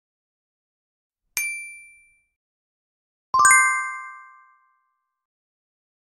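Two chime sound effects added in editing: a short bright ding about a second and a half in, then a louder, lower chime of several tones about two seconds later, each ringing out and fading.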